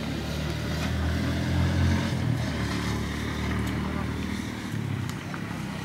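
A motor engine hums, growing louder over the first two seconds and then easing off, with people talking indistinctly over it.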